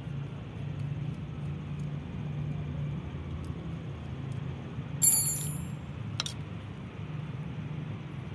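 Metal clink as a small tool and carburettor parts are handled: one sharp clink with a short, high ring about five seconds in, and a smaller click about a second later. A steady low hum runs underneath.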